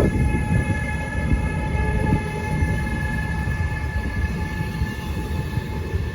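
Train running past on the rails: a steady low rumble of wheels with a faint steady whine over it, slowly dying away as the train moves off.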